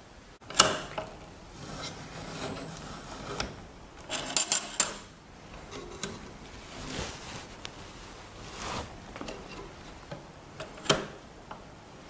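Metal clicks and clinks from a Woodland Mills bandsaw blade tooth setter as its handles are squeezed to bend the teeth and the steel blade is moved along to the next tooth. There is a quick cluster of sharp clinks about four seconds in and a single sharp click near the end.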